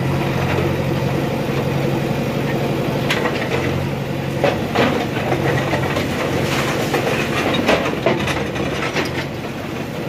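JCB 3DX backhoe loader's diesel engine running steadily under load while its bucket breaks up a concrete roof slab and brick walls. Irregular crashes and scrapes of breaking concrete and rubble come again and again through the second half.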